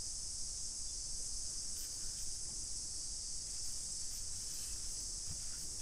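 Steady, high-pitched chorus of insects chirring.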